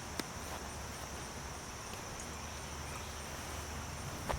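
Insects trilling steadily in a high, unbroken drone, with a faint click shortly after the start and a sharper click just before the end.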